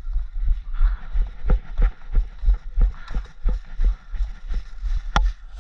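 Hurried footsteps on a bark- and leaf-strewn dirt path, about three steps a second, each a dull thud with a crunch of woodchips, as a person wearing a camera jogs along. There is one sharp click about five seconds in.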